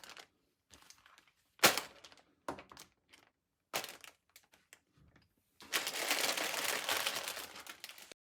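Packaging and plastic bags of Lego pieces being handled, with several short, sharp crinkles and cracks and then a longer stretch of continuous crinkling near the end.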